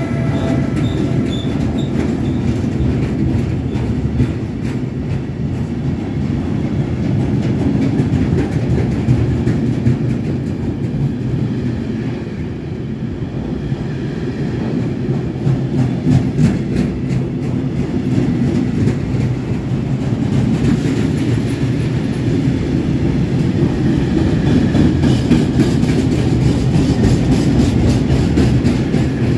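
Train running on the track with a steady rumble, its wheels clacking over rail joints again and again.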